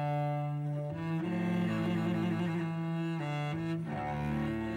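Background music of low bowed strings holding long sustained notes, the chord changing about a second in and again after three seconds.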